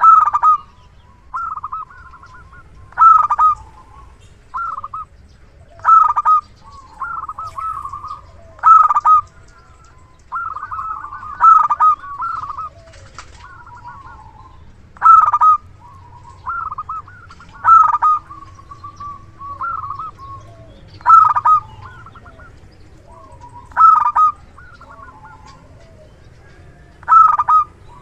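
Zebra dove (perkutut) cooing: a loud phrase of quick, clipped coos about every three seconds, with softer coos in between.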